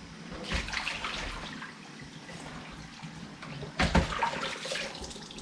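Hot tap water running and gushing into a Dyson DC33 vacuum cleaner's flexible hose held in a U shape, flushing dirt out of it, with a sudden louder burst just before four seconds in.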